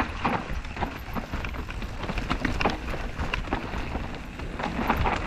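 Mountain bike rolling downhill over a rocky dirt singletrack: tyres crunching on soil and stones, with frequent rattling clicks and knocks from the bike as it goes over the rough ground.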